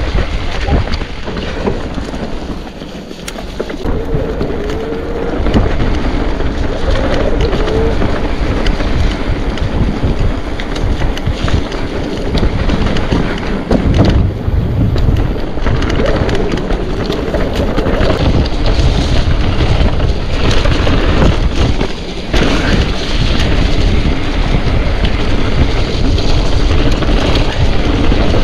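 Wind buffeting the microphone and the rumble of mountain bike tyres rolling over a rough trail at speed, with scattered knocks and rattles from the bike.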